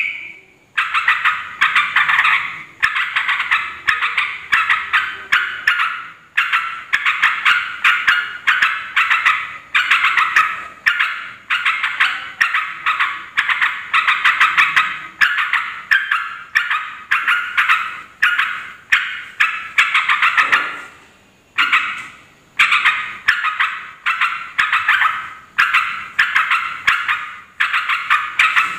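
Yellow-vented bulbul calling noisily: quick bubbling phrases of short notes, repeated one after another with hardly a break, pausing briefly about two-thirds of the way through.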